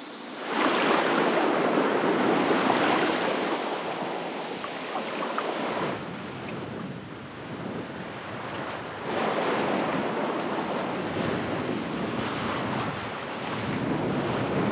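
Strong gusting wind buffeting the microphone and waves rushing past the hull of a sailboat under reefed sail. The noise surges and eases, loudest in the first few seconds and again about nine seconds in.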